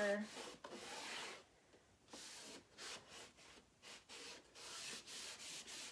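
A cloth pad rubbing finishing wax onto a painted wooden board, in a run of soft back-and-forth strokes with short pauses between them.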